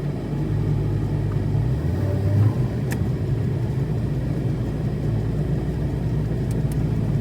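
Car running: a steady low rumble with a faint click about three seconds in.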